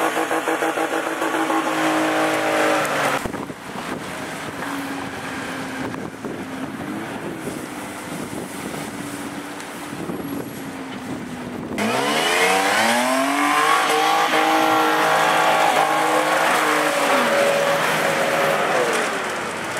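Off-road 4x4 engines working in mud, heard in several edited segments. It starts with a steady engine note, cuts to a quieter engine running, and then, about twelve seconds in, cuts to a loud engine revving up and down again and again under load.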